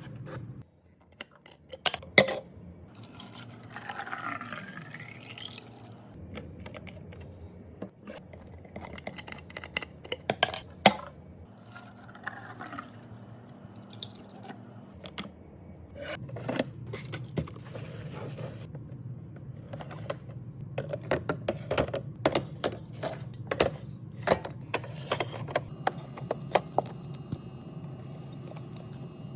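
Drinks and snacks being handled and set into place during a fridge restock: a run of sharp clicks and knocks of containers and packaging. Liquid is poured into a container a few seconds in, rising in pitch as it fills. The knocks come thicker in the second half.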